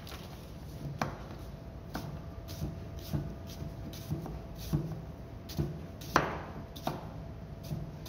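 Chef's knife slicing through a red onion and knocking on a plastic cutting board: about ten separate cuts at an uneven, unhurried pace, the loudest about six seconds in.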